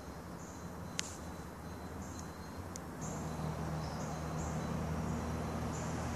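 Outdoor ambience: short high chirping calls repeating irregularly, over a low steady hum that grows louder about three seconds in. A single sharp click about a second in.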